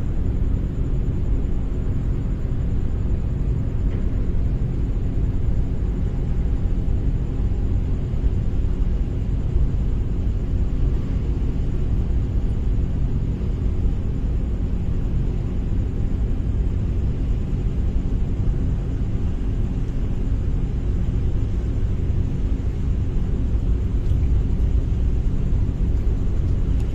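Steady low rumbling drone of a large passenger ferry's engines carrying across the water as the ship passes.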